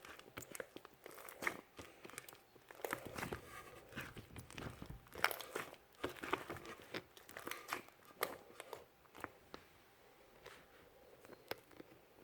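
Hands kneading, stretching and pressing an ivory-coloured slime, giving irregular crackling, popping and squishing clicks. The handling thins out near the end.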